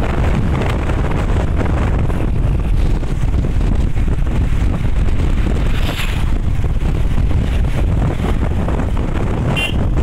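Wind buffeting the microphone over the steady rumble of a vehicle travelling along a road bridge. About six seconds in there is a brief louder rush as a bus goes by, and near the end a short high chirp.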